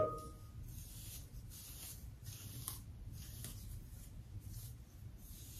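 Fingers running through fine relaxed hair: faint, soft rustling of the strands, repeated about every half second. A short tonal sound comes at the very start.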